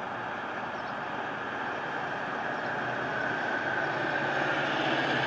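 Steady vehicle and street noise with a faint high whine, slowly growing louder, as of a vehicle drawing nearer.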